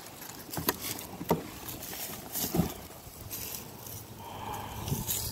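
Cardboard box and insert card being handled: a couple of sharp taps and a few short scraping rustles.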